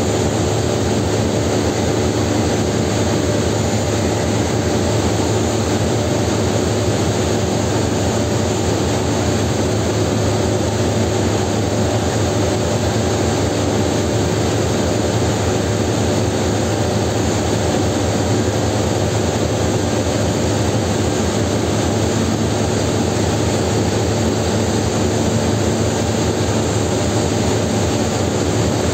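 TGM4 diesel shunting locomotive idling, a loud, steady drone with a low hum, mixed with the constant machinery noise of the steelworks hall.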